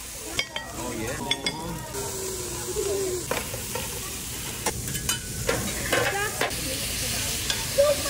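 Chicken, steak and shrimp sizzling on a steel hibachi griddle, with a number of sharp clicks and scrapes as the chef's metal spatula strikes the hot plate.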